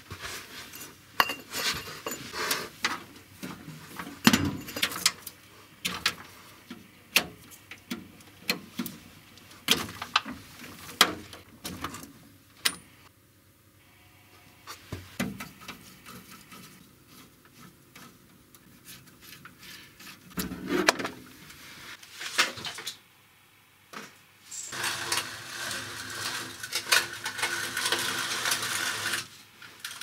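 Irregular clicks, knocks and rattles of cables, plugs and computer hardware being handled and unplugged. For the last few seconds a steady rushing noise with a hum runs under the handling.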